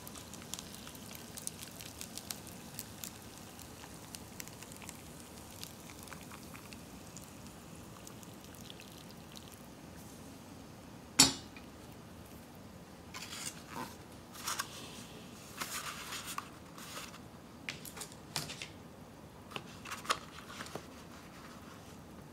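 Hot water poured from a stainless steel kettle into a paper cup of instant ramen, a faint steady trickle for the first ten seconds or so. About halfway comes a single sharp knock, then scattered light clicks and rustles as the cup and plastic chopsticks are handled.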